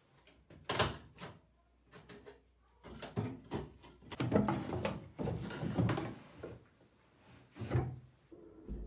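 A string of wooden knocks and clatters from handling an old wooden door and fitting a wooden sink cabinet. The knocks come thickest in the middle, with a single louder one near the end.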